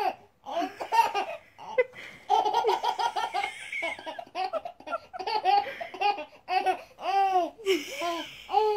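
A baby laughing hard in repeated bursts of high-pitched belly laughs.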